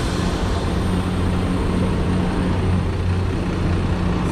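Steady apron noise of jet aircraft: a loud, constant low hum with a thin high whine over it.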